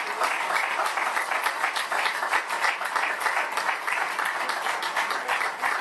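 Audience applauding: many hands clapping at once, in a steady, even wash.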